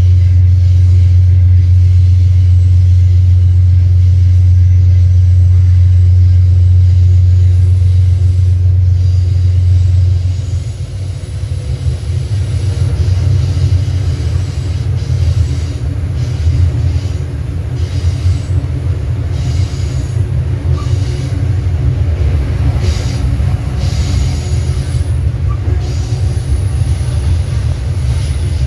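Amtrak GE Dash 8-32BWH diesel locomotive running under way, heard from just behind it: a loud, steady deep engine drone that drops away about ten seconds in, leaving a rougher low rumble of the moving train with faint, intermittent high squeals from the wheels.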